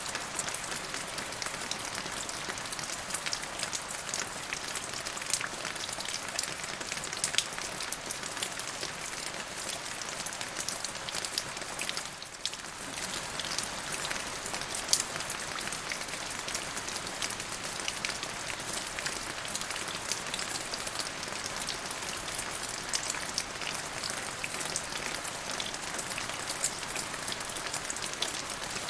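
Steady rain falling, with many individual drops tapping on a surface. It is a dense, even hiss with small ticks scattered throughout, and it eases off briefly about twelve seconds in.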